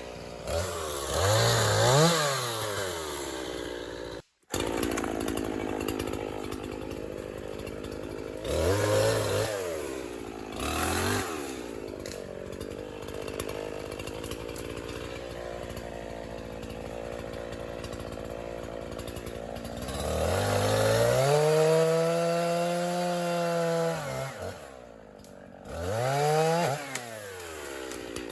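50cc two-stroke chainsaw idling with several short throttle blips, then held at full throttle for about three and a half seconds in a cut, dropping back to idle before a last blip near the end.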